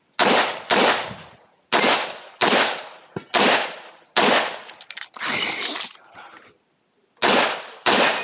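Pistol shots fired in quick pairs, about ten in all, each sharp crack trailed by a short echo, with a pause of about a second and a half before the last pair.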